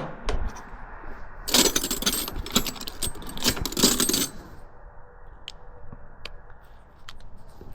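Small metal parts and tools clinking and rattling as the air compressor regulator is worked apart by hand. There is a dense burst of clattering from about a second and a half in to about four seconds, with a few single ticks around it.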